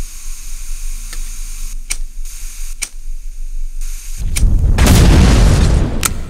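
Sharp clicks about once a second, then about four seconds in a loud, rumbling blast lasting some two seconds: a gas explosion as a stove burner is lit.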